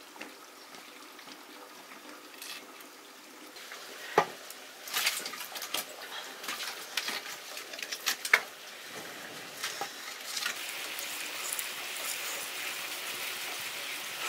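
Cooking sounds: metal utensils clink and knock against a pot several times, then food begins to sizzle steadily in the pan from about ten seconds in.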